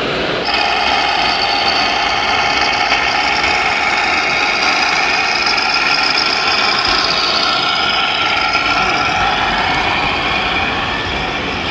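Radio-controlled model vehicle running: a steady high-pitched mechanical whine with several held tones, starting about half a second in.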